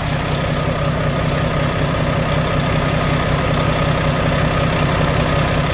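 Volvo FH4 truck's diesel engine idling steadily, its knock no longer heard after a camshaft replacement.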